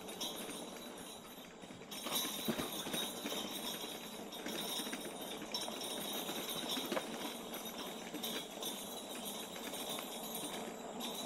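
Bells on an electric trike jingling and clattering as it rides over a bumpy trail of sticks and rocks, with small knocks from the bumps.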